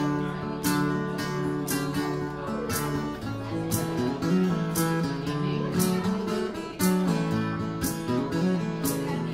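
Acoustic guitar played solo, strummed chords in a steady, even rhythm.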